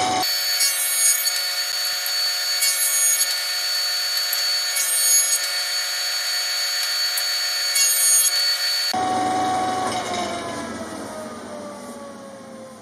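Grizzly G0490 8-inch jointer running and cutting a board in several passes, with brighter bursts of cutting noise each time the knives bite. About nine seconds in it is switched off, and the cutterhead and motor wind down with a falling hum.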